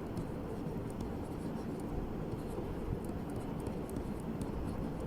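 Faint scratching of handwriting: many short, light pen strokes over a steady low background noise.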